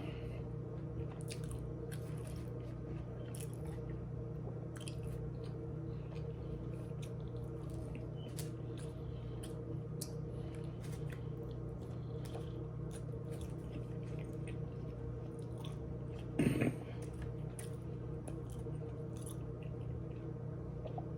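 A person chewing mouthfuls of a Subway footlong sandwich, with small wet mouth clicks over a steady low hum. One brief louder sound about sixteen seconds in.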